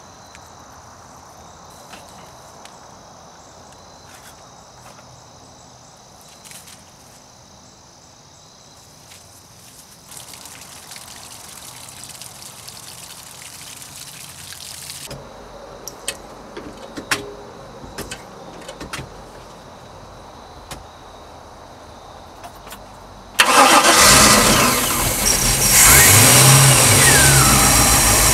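Chevy 305 V8 marine engine catching and running loudly about 23 seconds in, after a quiet stretch with a few clicks. Earlier, crickets chirp and water from a garden hose splashes out of the sterndrive for a few seconds.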